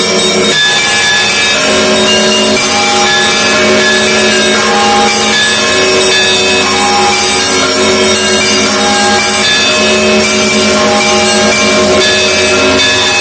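Russian Orthodox monastery bells ringing: many bells of different pitches struck over and over in a dense, unbroken peal.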